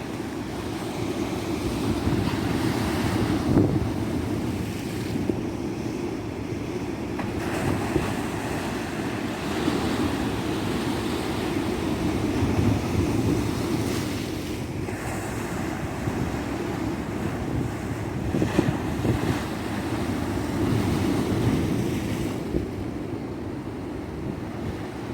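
Ocean surf on a tropical beach: waves breaking and washing up the shore in slow swells, over a steady low rumble. Wind buffets the microphone.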